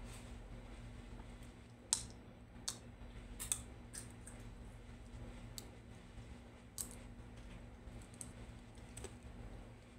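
Irregular sharp clicks and light taps, about eight to ten of them, with the loudest about two seconds in. Under them runs a steady low hum.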